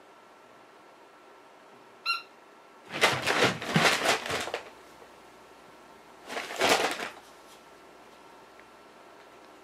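A brown paper shopping bag crinkling and rustling as an animal scrambles on it: a long burst about three seconds in and a shorter one near seven seconds. Just before, a single short high squeak from a plush squeaky dog toy.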